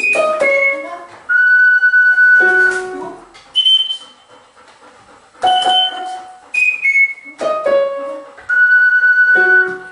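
Single electronic notes from a large floor keyboard with paddle keys, pressed by a golden retriever's paw, alternating with high, thin whistle-like tones blown by a person on a small handheld instrument. The same short run of notes, including one long held note, comes twice, with a lull around the middle.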